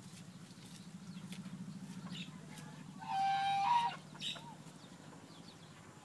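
Farmyard poultry: one drawn-out, steady-pitched call about three seconds in, lasting about a second, followed by a short squeak, over a faint low hum.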